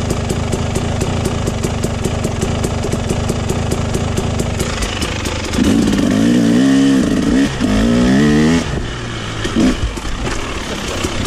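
Dirt bike engine running steadily. About halfway through it is louder for a few seconds, with the revs rising and falling twice.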